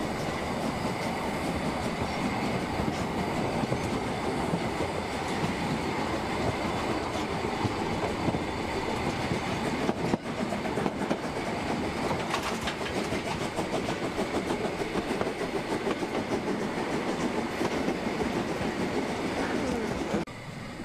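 H0-scale model trains running on the layout's track: a steady, fine rattling clatter of small wheels on model rails. It breaks off briefly about halfway and drops away near the end.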